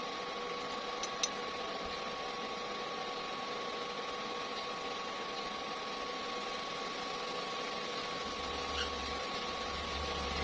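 Steady mechanical hum with a faint whine, and two faint clicks a little over a second in; a low rumble joins near the end.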